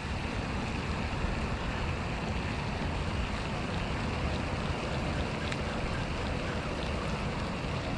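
Wind buffeting the microphone: a steady, deep rushing noise with no break.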